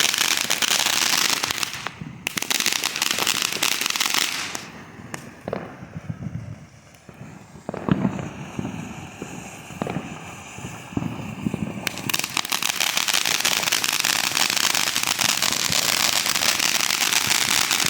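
Fireworks going off: a dense, rapid crackle that dies down after about four seconds, a sharp bang about eight seconds in followed by scattered pops, then dense crackling again from about twelve seconds.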